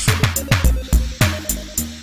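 Electronic background music with a steady kick-drum beat and a sustained synth note.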